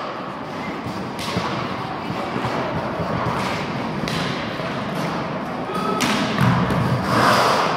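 Roller hockey play: a steady rolling noise with repeated knocks and thuds of sticks and ball, spread through the whole stretch.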